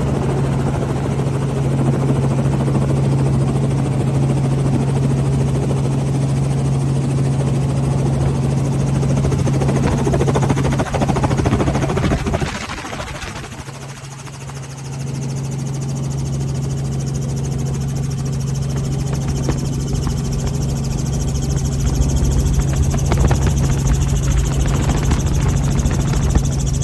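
Steady engine drone of a small aircraft, heard from aboard, with a strong low hum. It eases off for a couple of seconds about halfway through, then builds back up.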